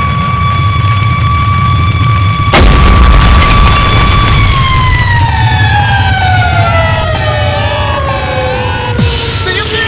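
Animated rocket sound effect: a steady high whistle over a low rumble, with a sudden loud blast joining about two and a half seconds in. From about four seconds the whistle glides steadily down in pitch almost to the end, with short wavering tones over it and a single thump near the end.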